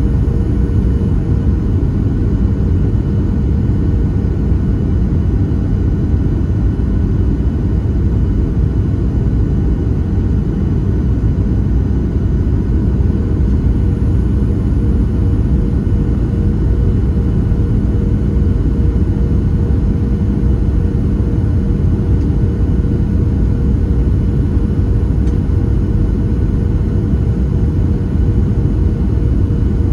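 Cabin noise inside a Boeing 737-700 in flight on approach: a steady low rumble of airflow and its CFM56-7B jet engines, with a constant droning hum running through it.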